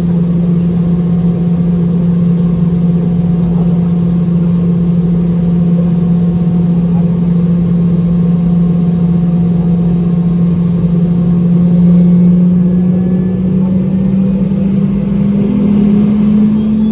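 Rolls-Royce BR715 turbofan of a Boeing 717, heard from the cabin beside the rear-mounted engine, running while the aircraft is held still on the runway for a static takeoff. A loud steady drone whose pitch rises slightly in the last few seconds as the engine spools up.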